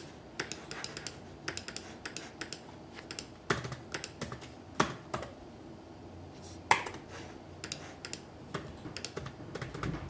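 Typing on a laptop keyboard: quick, irregular key clicks with a few louder taps.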